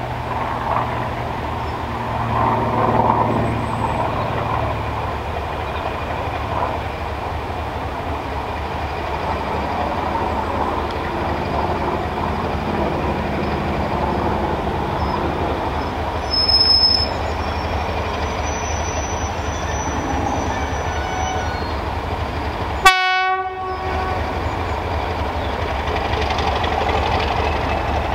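Class 31 diesel locomotive running as it leads a train round a curve towards the listener, a steady engine drone that grows louder near the end. A short horn toot sounds about five seconds before the end.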